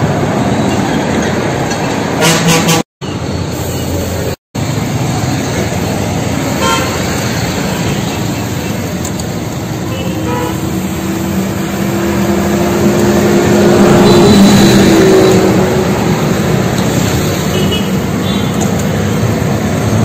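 Road traffic running past, engines and tyres, with vehicle horns sounding. The traffic gets louder around the middle, where a held horn-like tone sounds for a few seconds.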